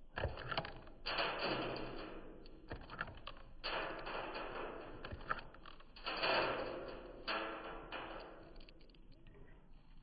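Blue jay pecking and digging through birdseed in a plastic feeder tray: quick sharp taps with several louder bursts of rustling seed, each starting suddenly and dying away over about a second.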